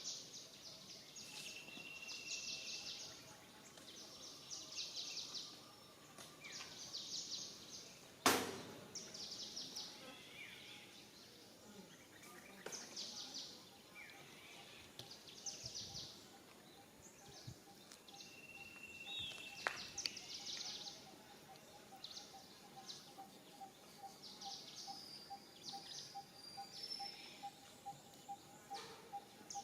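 Outdoor ambience of repeated high chirps and calls, like small birds, with one sharp click about eight seconds in. In the second half a steady pulsing note repeats about twice a second.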